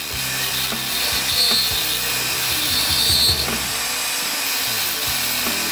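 Turning tool cutting a spinning wooden pen blank on a wood lathe, shaping the barrel: a steady scraping hiss of the cut, sharper and brighter twice, about a second and a half in and again about three seconds in.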